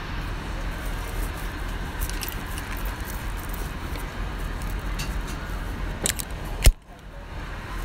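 Steady airliner cabin noise, a low rumble and hiss. A few light clicks and knocks from handling come through it, and a sharp louder click near the end is followed by a brief drop in the sound.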